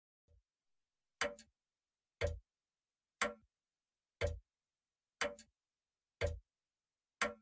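Grandfather clock ticking steadily, one tick a second, with silence between the ticks.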